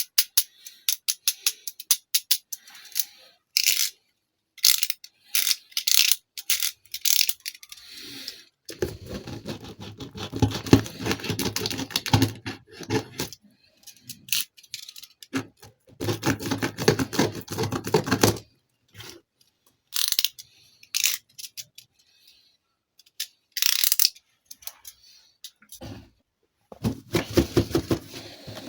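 Toy packaging being handled and opened: sharp clicks, plastic crackling and tearing, with several longer stretches of rustling and rubbing.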